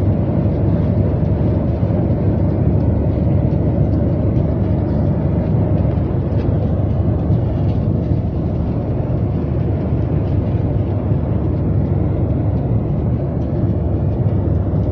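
Jet airliner cabin noise in flight: a steady low rumble of engines and airflow heard from a window seat.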